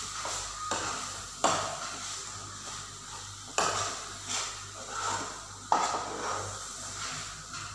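Metal spoon stirring and scraping thick grated-carrot halwa round a pan, with repeated clinks of the spoon against the pan. The loudest three come about two seconds apart. Ghee sizzles softly underneath as the halwa keeps cooking.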